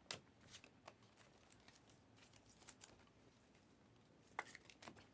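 Faint, sparse clicks and rustles of trading cards being handled and flipped through, a handful of light ticks in a near-silent room.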